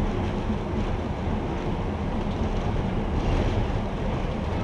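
Thai State Railway diesel train running, heard from on board: a steady low engine and wheel rumble with no breaks.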